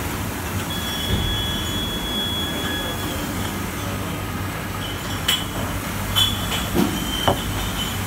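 Bottle-washing machine and its bottle conveyor running with a steady hum and a thin high squeal for about two seconds near the start, then several sharp clinks of glass bottles in the second half.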